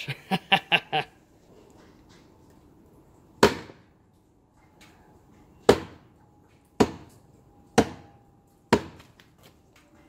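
A metal bar jabbed down onto a swollen LiPo battery pack sitting in a bucket of water: five sharp strikes, the last four about a second apart, as the puffed pack is stabbed to puncture it.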